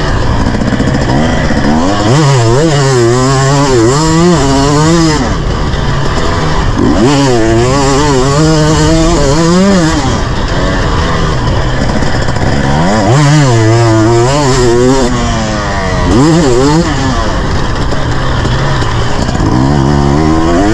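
Husqvarna motocross bike's engine heard from the rider's position, its revs climbing and dropping again and again as the throttle is opened and closed, with the pitch wavering under load.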